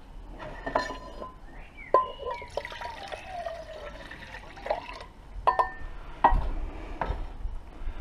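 Water poured from a cup into a Primus Eta Solo cook pot, splashing, with several sharp metallic clinks and knocks of cup and pot being handled.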